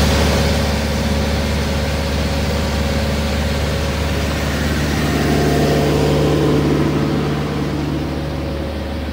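Semi truck's diesel engine idling steadily with a low, even hum. The rumble swells a little about five seconds in and eases near the end.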